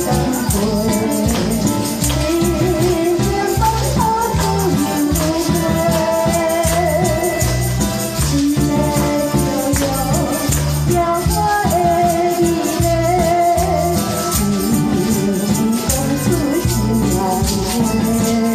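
A woman singing a Taiwanese-language song into a microphone over a backing track with a steady beat. A handheld tambourine is shaken along, jingling.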